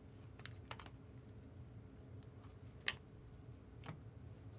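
Trading cards being handled and flipped through: a few sharp, light clicks and snaps of card edges, the loudest just under three seconds in.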